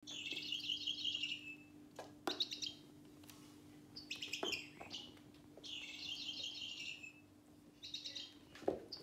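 Electronic bird-chirp sounds from a CatDribBall interactive cat toy ball, in repeated, closely alike bursts of up to about a second and a half. A few sharp knocks come in between as the ball is batted against the wooden floor.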